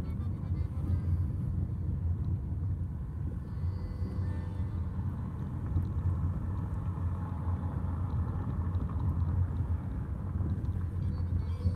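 Car engine and road rumble heard from inside the cabin while driving along a city street.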